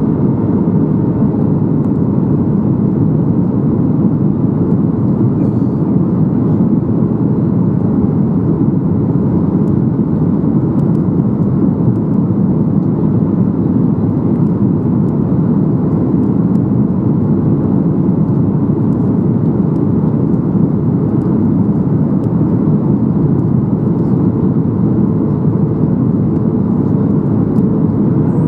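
Steady cabin noise inside a Boeing 737-800 in flight on approach: a loud, even rumble of airflow and CFM56 engines, with a faint steady hum on top.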